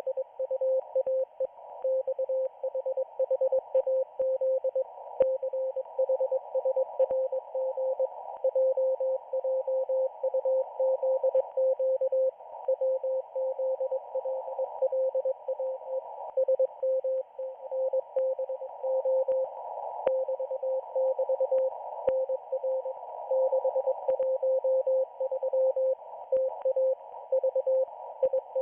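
Morse code (CW) from the Israeli Navy radio station 4XZ heard on a shortwave receiver. A single steady tone keyed in quick dots and dashes over a narrow band of hiss, with occasional faint static clicks.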